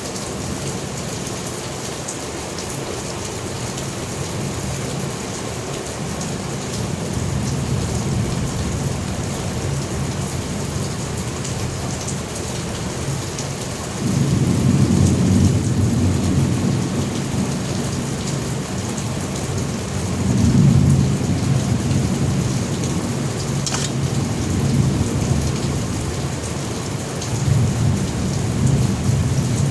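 Steady heavy rain with rolling thunder. A loud rumble comes in suddenly about halfway through, and two more swells of thunder follow near the end.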